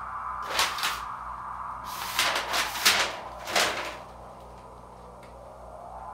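Improvised experimental music: a series of short, breathy swishing noises, two close together about half a second in, then a cluster of about five between two and four seconds, over a steady low hum and a faint held tone.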